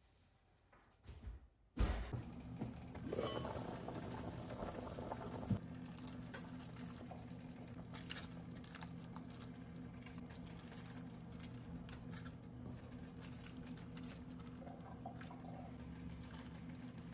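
A pot of soup bubbling on the stove under a steady low hum, with soft splashes and rustles as cabbage wedges are dropped into the broth. Before that there is near silence, broken by a single thump about two seconds in.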